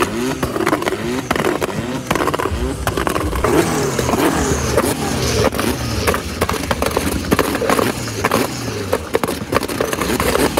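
Modified cars, a Mercedes and Honda Civic EK and EG hatchbacks, revving repeatedly, the engine pitch climbing again and again while the exhausts fire off rapid cracking pops and bangs: deliberate backfiring.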